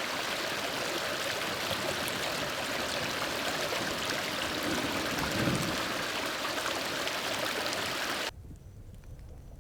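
Steady rain falling, a dense even hiss, which cuts off suddenly near the end and leaves a much quieter low rumble.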